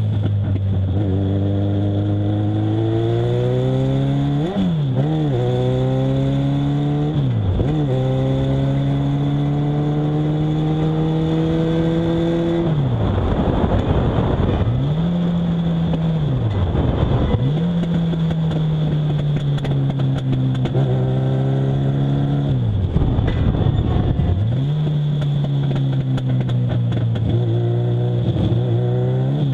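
Legends race car's Yamaha motorcycle engine, heard from inside the cockpit on track. It revs up through the gears, with the pitch dropping at two upshifts in the first eight seconds, then holds at high revs. Later the revs dip and climb again several times as the car slows for corners.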